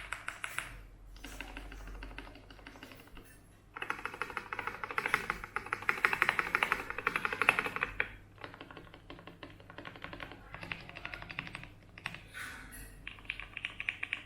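Fast typing on a Primus 75 mechanical keyboard with linear Cherry MX Black Hyperglide switches and PBT Cherry-profile keycaps: keystrokes clacking in quick, dense runs, loudest about four to eight seconds in and again near the end.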